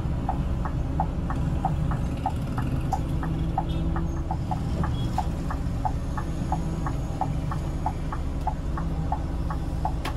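Scania K360IB coach's diesel engine running at low revs under a steady rapid beeping of about three beeps a second, the coach's warning beeper sounding while it manoeuvres back and forth into a narrow lane.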